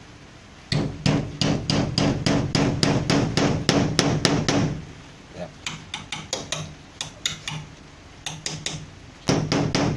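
Rapid hammer blows on metal, about five a second for some four seconds, then a few scattered strikes, then another quick run near the end, each with a short low ring.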